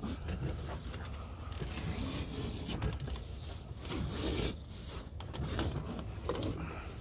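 Old flat screen spline being pulled out of a screen-door frame's metal channel with a spline removal hook, creaking and scraping as it comes free, with a few sharp clicks.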